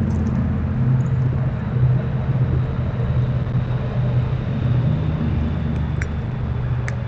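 A steady, low engine rumble with a level hum, plus a couple of faint high ticks near the end.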